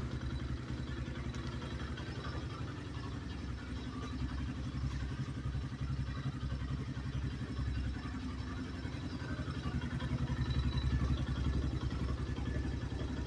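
Motorcycle engine of a new 2024 X-Pro Knight DLX 250 idling steadily with a rhythmic clatter, the engine knock the owner is concerned about.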